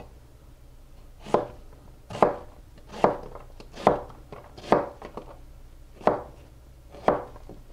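Chef's knife making cross cuts through an onion and striking a plastic cutting board, seven evenly paced cuts about one a second, dicing the onion into small even pieces.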